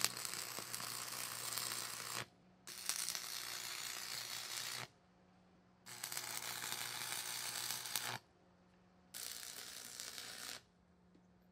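Lincoln AC-225 stick welder's arc crackling and hissing as an electrode lays weld beads on steel, in four runs of about two seconds each with short breaks between them.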